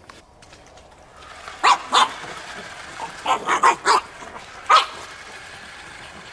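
Pug puppy yapping in short, sharp barks: two about a second and a half in, a quick run of four around three and a half seconds in, and one more near five seconds, over a steady hiss.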